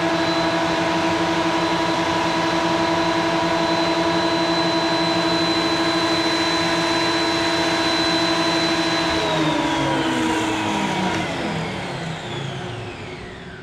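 Electric power tool motor running at a steady high speed with no load, then switched off about nine seconds in, its pitch falling as it coasts to a stop.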